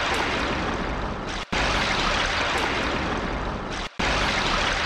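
Steady rushing, water-like noise, as of a rain or stream ambience. It cuts out sharply for an instant twice, about one and a half and four seconds in.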